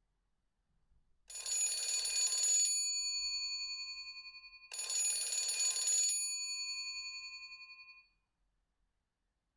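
Alcatel OT-808 mobile phone's speaker playing a ringtone that imitates an old bell telephone. There are two rings, about three and a half seconds apart, each a rattling burst of about a second and a half whose bell tones then fade out slowly.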